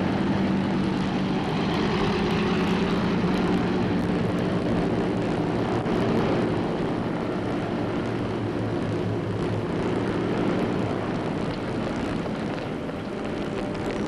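Propeller airliner's engines running steadily, a low hum of many tones with a rushing noise over it.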